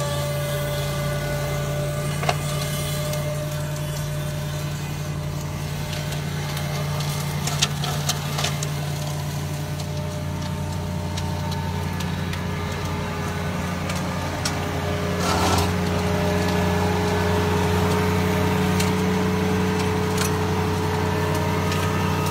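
Ferrari Cromo K40 RS compact tractor's diesel engine running steadily while driving its rear-mounted flail mower through grass, with a few sharp clicks. The engine note rises slightly about two thirds of the way through.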